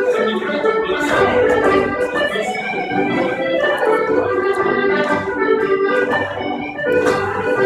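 Instrumental folk dance music playing a chapelloise tune: a melody over held chords that runs on without a break.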